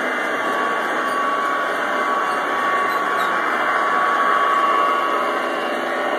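G scale model train running on the track: the locomotive's electric motor and gears whine steadily over the rolling of the wheels. It grows a little louder about four seconds in as the locomotive passes close by.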